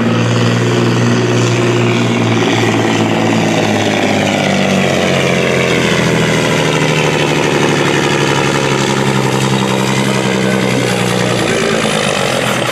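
Volvo FH16 pulling truck's straight-six diesel running hard at full throttle, dragging the sled on a full pull. Its low drone drops away about a second before the end as the throttle comes off.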